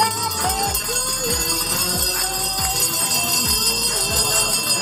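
Background music: a melody over a steady beat, with jingling percussion.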